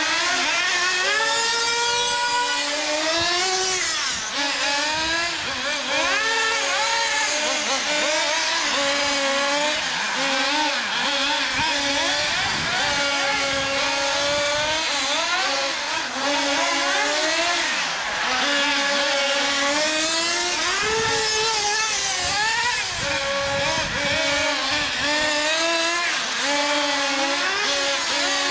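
Several HPI MT2 nitro RC monster trucks running at once, their small nitro engines revving up and down in overlapping whines that keep rising and falling as the trucks accelerate and slow.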